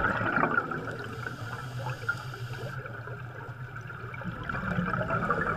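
Underwater bubbling and gurgling, as of air bubbles rising through water, over a steady low hum.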